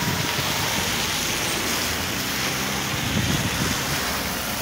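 Road vehicles driving past through standing water on a rain-flooded road: a steady hiss of tyres on the wet surface, with engine sound underneath.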